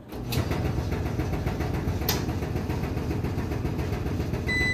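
Huebsch coin-operated tumble dryer starting up and running steadily, its drum turning empty with no clothes inside. There is a click about two seconds in, and a control-panel beep near the end as its start button is pressed.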